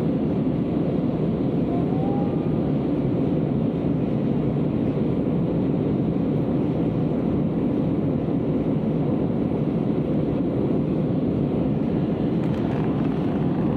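Airliner jet engines running, a steady, even rush of noise that does not rise or fall.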